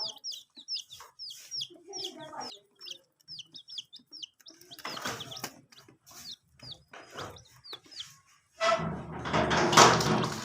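Baby chicks peeping: a quick run of short, high, falling peeps, several a second, with a lower call among them about two seconds in. Near the end a loud noisy rush of sound drowns them out.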